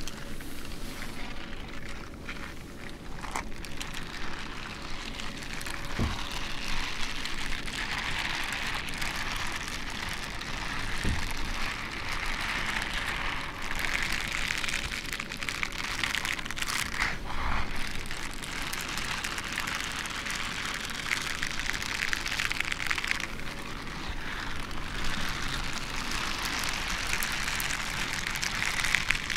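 Leather gloves rubbed and brushed together close to the microphone: a steady rustling with fine crackles.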